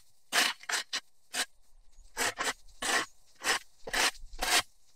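Shovel blade scraping dirt and cut grass debris off a concrete sidewalk edge in about ten short, quick strokes.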